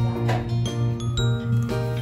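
Background music: held pitched notes over a steady, pulsing bass line.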